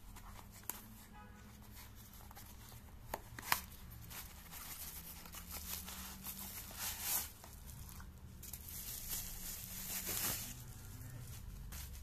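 A thin cardboard box being torn open by hand, with a few sharp snaps in the first few seconds, followed by bouts of crinkling plastic bubble wrap as a flashlight is pulled out and unwrapped.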